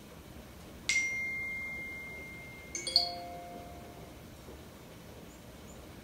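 Two bell-like chime tones about two seconds apart, each struck suddenly and then ringing away. The second is louder and holds several pitches at once.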